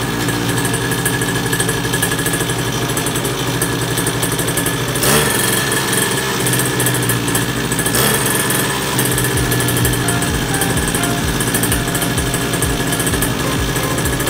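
Small pocket-bike engine running steadily, a buzzy, rattly motor sound, with its newly fitted carburetor.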